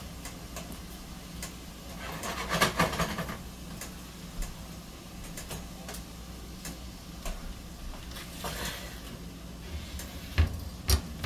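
Kitchen handling sounds at a stove: scattered light clicks and two brief rustles over a steady low hum, with two sharper knocks near the end.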